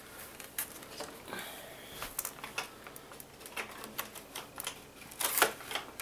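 Irregular clicks, rattles and scrapes from a Shark Rocket vacuum's plastic hose and body being handled while a stiff wire is pushed through the clogged hose, with a louder knock near the end. The vacuum is not running.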